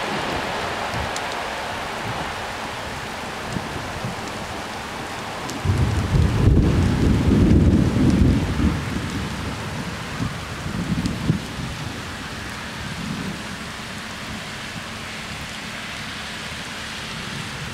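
Steady rain falling, with a loud roll of thunder that starts suddenly about six seconds in and rumbles for about three seconds, followed by a few weaker rumbles.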